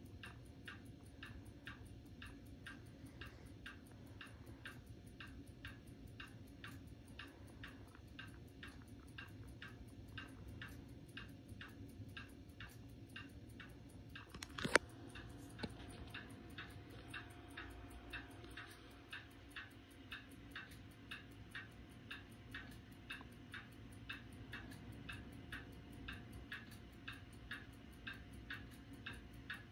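Analog wall clock ticking steadily and evenly over a faint hum, with one sharp, louder click about halfway through.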